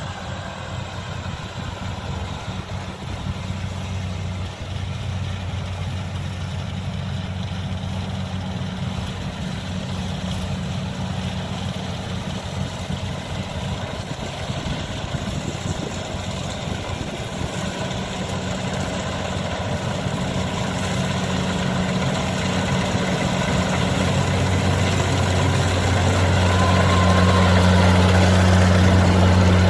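Kubota DC-70 combine harvester's diesel engine running steadily with the mechanical clatter of the machine, growing louder over the last several seconds.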